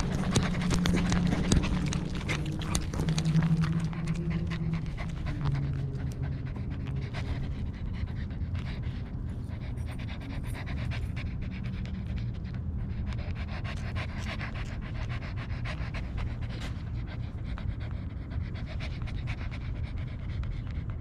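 A corgi panting steadily, heard very close from a camera mounted on its own collar, with small clicks throughout. A low droning tone, stepping down in pitch, sounds over the first five seconds or so.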